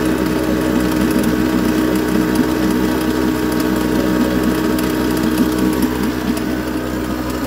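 YADAO 3.5 hp water-cooled two-stroke outboard motor running steadily at a slightly raised, locked throttle, its propeller turning in a trash can full of water. The brand-new engine is being broken in.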